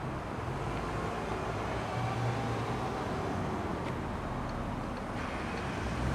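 Steady low rumble of distant engine noise with a faint hum, holding even throughout.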